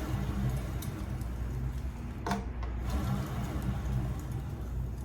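Hand work on a BMX bike's new sprocket and pedals: two sharp metallic clicks, about a second and a half apart, over a steady low hum.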